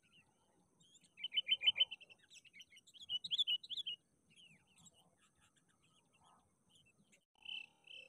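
Sooty-headed bulbuls calling: a quick run of about eight chattering notes about a second in, then a burst of varied, rising and falling whistled notes, followed by scattered faint chirps.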